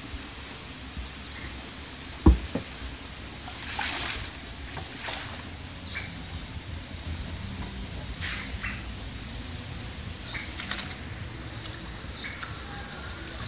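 One sharp, deep knock on a small wooden boat's hull about two seconds in. Short high chirps come every second or two over a steady high-pitched hum.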